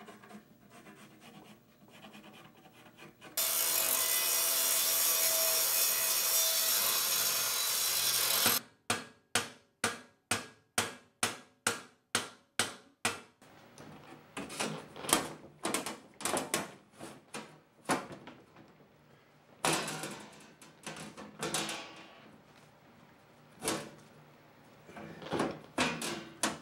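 A power tool runs steadily for about five seconds, starting and stopping abruptly, followed by about a dozen even back-and-forth hand-tool strokes at roughly two a second. After that a sheet-metal floor pan scrapes and knocks irregularly as it is fitted onto a go-kart's steel tube chassis.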